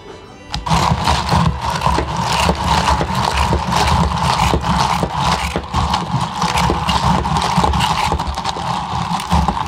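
Iced green tea milk being mixed in a lidded plastic cup, most likely by a motorised shaker base: a steady, loud mechanical whirring with ice rattling and clicking against the cup. It starts abruptly about half a second in and cuts off just before the end.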